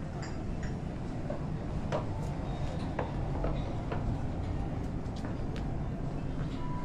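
Busy store ambience: a steady hum of shoppers and building noise, with scattered clicks and knocks, the sharpest about two, three and four seconds in.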